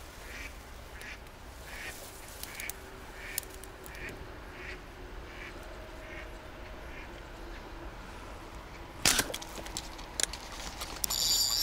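A slingshot fishing shot at a carp: one sharp slap and splash about nine seconds in, which misses the fish. Before it comes a regular run of short calls, about one every three-quarters of a second. Near the end there is a high whirring.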